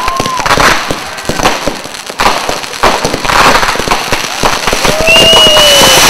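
Fireworks display going off: a dense, irregular run of bangs and crackles. About five seconds in, two shrill whistles start up together, one high and one lower and slowly falling.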